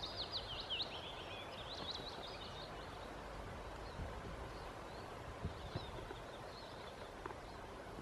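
Small birds singing in quick high chirps over a steady background hiss, busiest in the first two seconds or so, with a few fainter calls later.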